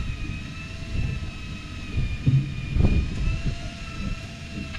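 Steady motor whine with a slight waver, over a low rumble and a few dull knocks.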